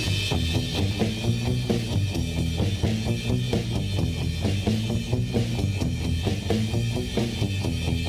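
Background music: a rock track with drum kit and a driving beat over a steady bass.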